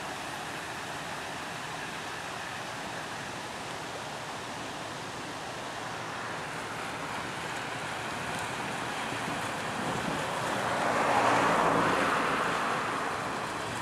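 Wind on the microphone over a steady wash of water. About ten seconds in, a louder rush of water swells and fades as an inland cargo barge's bow wave passes close by, with a faint low engine hum beneath it.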